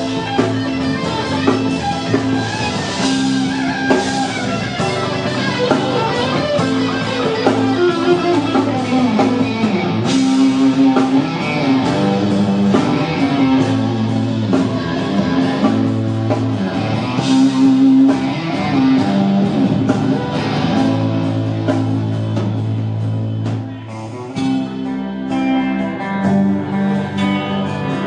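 Rock band playing live, guitars out front over bass and drum kit. The band drops back briefly near the end, then comes in full again.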